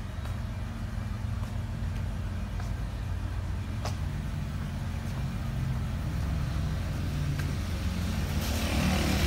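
Low rumble of a motor vehicle's engine running close by, slowly growing louder, with a rushing hiss rising near the end.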